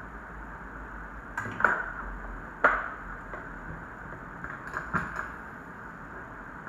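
Several sharp clicks and taps, as of small tools or objects being set down on a workbench, over a steady fan-like hiss. The loudest tap comes near the middle.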